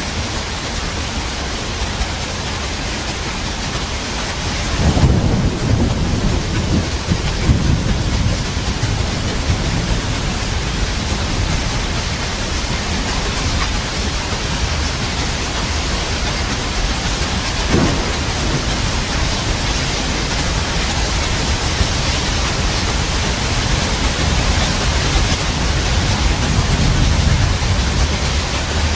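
Steady rain with rolling thunder. A deep rumble starts about five seconds in and rolls on for a few seconds, and a shorter thunderclap comes a little past halfway.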